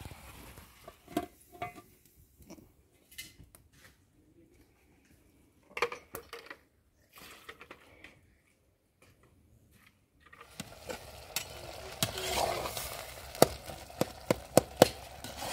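A metal spoon stirring tomato and potato stew in a metal pot over a wood fire, clinking sharply against the pot many times over a steady sizzle in the last third. Before that, a long nearly quiet stretch with a few faint knocks.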